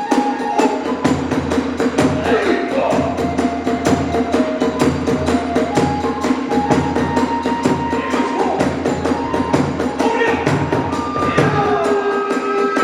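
Hiroshima kagura hayashi ensemble playing: drums and hand cymbals keep a fast, steady beat under a high flute melody of held and stepping notes.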